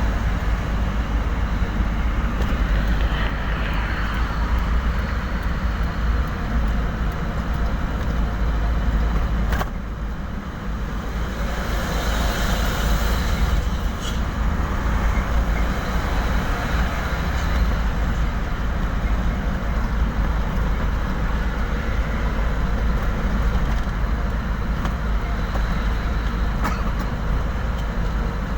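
Steady low rumble of road traffic and vehicle engines on a congested toll road, dipping briefly about ten seconds in, with a few faint clicks.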